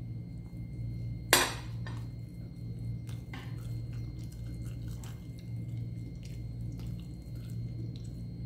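Metal fork cutting a pancake and clinking on a ceramic plate, with one sharp, loud clink about a second in and lighter taps and scrapes after it. A steady low hum runs underneath.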